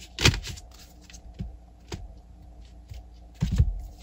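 Tarot cards being shuffled and handled: light card clicks, with two louder dull knocks of the deck, one just after the start and one near the end as cards are laid on the table.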